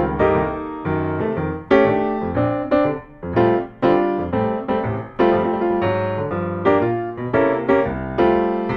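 Background music: a keyboard melody of struck notes that each ring and fade.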